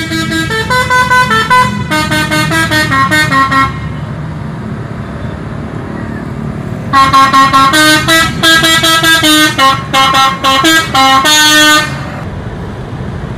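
Tour bus musical air horns (telolet horns) play quick runs of changing notes like a tune, over the steady rumble of a bus engine. The horns sound in two bursts: one of about four seconds at the start, and a longer one from about seven seconds in.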